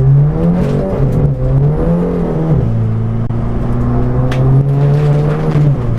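Stage 3 VW MK7 GTI's turbocharged four-cylinder engine accelerating hard under full throttle. Its pitch climbs, falls sharply with a DSG upshift about two and a half seconds in, then climbs again to another upshift near the end.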